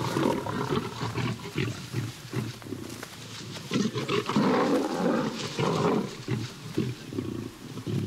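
African lions fighting: a run of short, harsh growls and snarls from several lions in an aggressive clash, the loudest bursts coming about halfway through.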